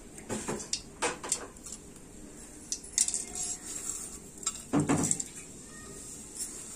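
A stainless-steel plate knocking and scraping against a metal kadai as whole spices are pushed off it into hot oil: a few separate clinks, the loudest about five seconds in.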